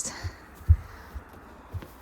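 A few dull, low thumps, the loudest about two-thirds of a second in, over faint background hiss.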